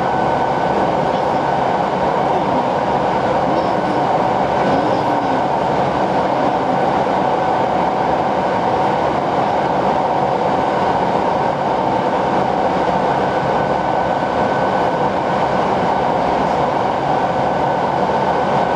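Hokushin Kyuko commuter train running at speed through a tunnel, heard from inside the rear cab: a loud, steady rumble of wheels and running gear with a constant whine held on top.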